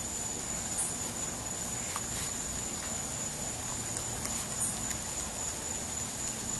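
A raccoon eating peanuts off the patio floor, with a few faint clicks as it picks them up and chews. A steady high-pitched trill runs throughout, over an even hiss.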